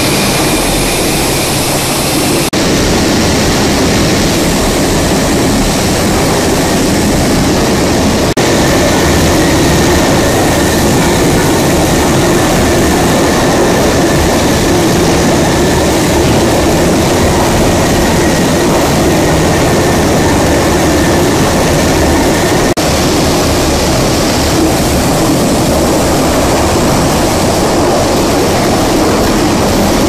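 Centrifugal paunch (tripe) washing machine and its lift running with a loud, steady industrial machinery din. A faint high whine runs through the middle part, and the sound changes abruptly three times.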